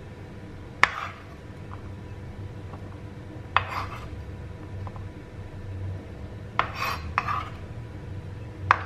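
A kitchen knife and a glass jar clinking as diced red onion is scraped off the blade into the jar: five sharp knocks spaced irregularly, two of them close together near the end.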